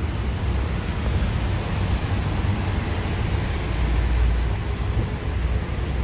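Road traffic on a rain-wet street: a steady engine rumble with tyre hiss on the wet road.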